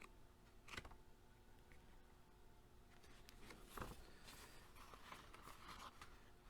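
Near silence: room tone, with a few faint clicks and light rustling from handling something.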